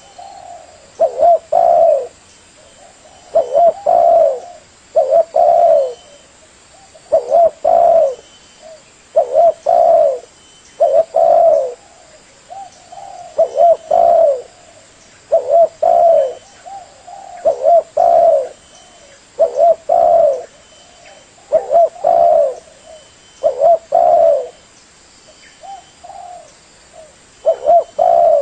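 Spotted dove (tekukur) cooing over and over: short low coo phrases that repeat about every two seconds, with softer coos in some of the gaps.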